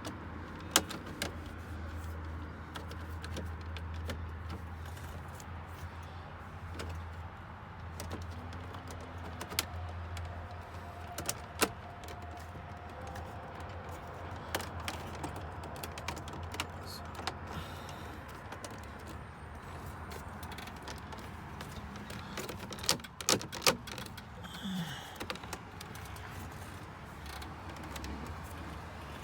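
Scattered clicks and light knocks of plastic dashboard trim and a light switch being handled and pressed back into the truck's dash, with a few sharper clicks close together late on, over a steady low hum.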